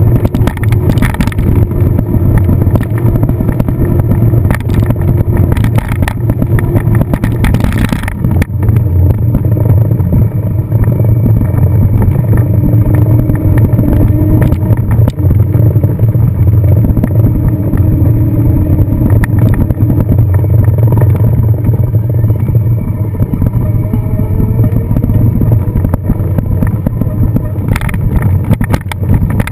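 A car driving, with steady engine and road noise dominated by a low rumble and a faint engine hum that shifts slightly in pitch.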